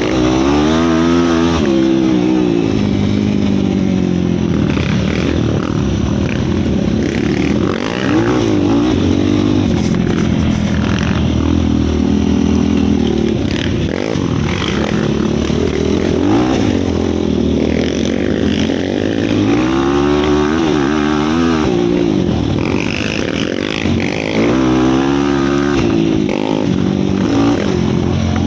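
Yamaha YFZ450 sport quad's single-cylinder four-stroke engine being ridden hard, revving up and backing off several times, its pitch climbing and dropping with the throttle.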